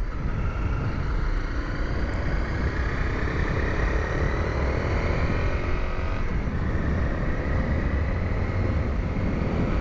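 Honda CRF250L single-cylinder motorcycle engine running under way, its pitch climbing slowly, dropping about six seconds in and climbing again, under a steady low rumble.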